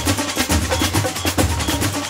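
Parade music driven by drums: a fast run of snare and percussion hits over a deep, steady bass.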